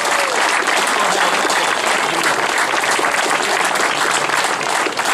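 Crowd applauding: many hands clapping steadily, with a few voices mixed in.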